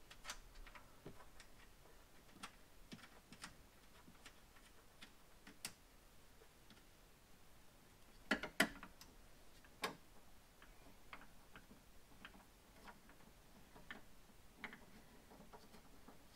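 Light, scattered clicks and taps of a catch can and its mounting hardware being worked into place by hand in an engine bay, with a couple of sharper knocks a little past halfway.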